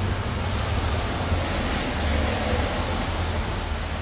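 Steady hiss of rain and traffic on a wet street, with a constant low rumble underneath.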